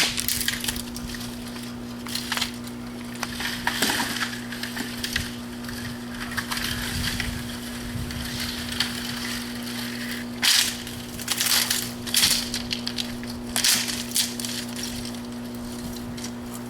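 Dry branches and brush being cut and broken by hand: irregular crunching and cracking strokes, several in quick succession about ten to fourteen seconds in, over a steady low hum.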